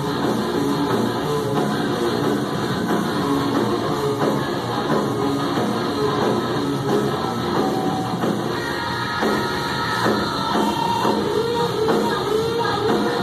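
Live rock band playing with sung vocals, drums and distorted guitars. The sound is harsh and compressed, as from a phone microphone.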